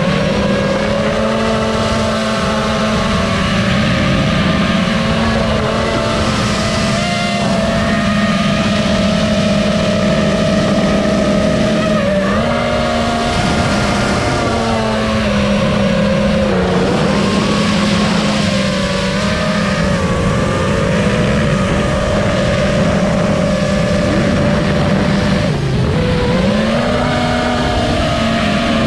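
FPV racing quadcopter's Cobra 2205 2500kv motors and propellers whining steadily, heard close from the onboard GoPro, the pitch dipping and climbing again every few seconds as the throttle changes.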